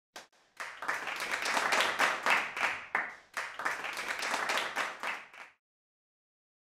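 A crowd applauding: dense clapping that swells and dips a few times, then cuts off abruptly about five and a half seconds in.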